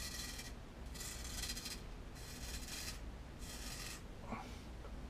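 Ceramic chef knife blade scraping through beard whiskers as it is drawn across the cheek and jaw to shave, in four short strokes with brief pauses between them.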